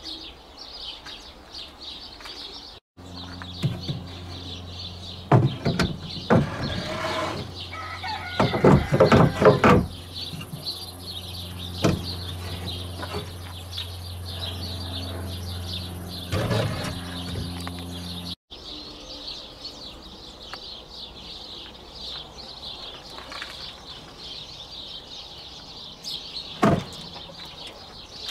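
Small birds chirping continuously in the background. Over this come several loud knocks and clatters, a cluster of them in the first half and one sharp knock near the end, and a steady low hum in the middle part.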